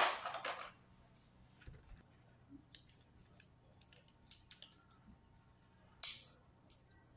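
Scissors, pens and a box cutter being handled and set into a plastic compartment organizer tray. There is a short burst of clatter at the start, then a few faint clicks, and another brief burst about six seconds in.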